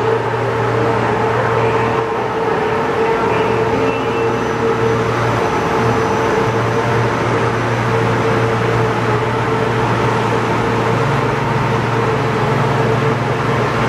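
Bullard CNC vertical boring mill running, a loud steady mechanical hum made of a low drone and a higher steady tone. The low drone shifts slightly higher about eleven seconds in.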